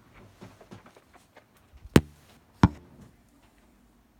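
Vacuum cleaner hose and attachments being handled: a few light clicks, then two sharp knocks about two-thirds of a second apart, the second a little softer.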